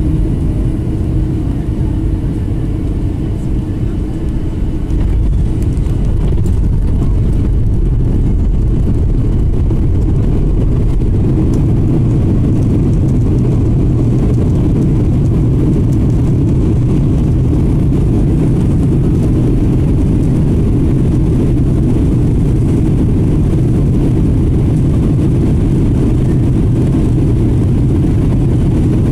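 Boeing 737-800 cabin noise heard from a window seat: a loud, steady low rumble of the CFM56 engines and rushing air, growing louder about five seconds in and holding steady after.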